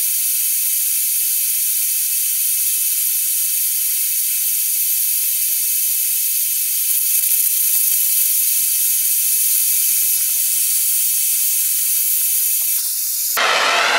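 Gas torch flame heating a crucible of silver and brass scrap, heard as a steady, thin, high hiss with no low end. Just before the end it gives way abruptly to a fuller, lower rushing sound.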